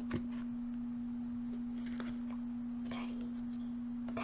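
A steady electrical hum on the recording, one unchanging low tone, from a poor-quality microphone. Faint rustles of trading cards being handled come now and then.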